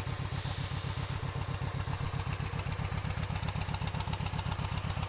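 Kawasaki Vulcan Nomad V-twin motorcycle engine idling, a steady, even low pulse.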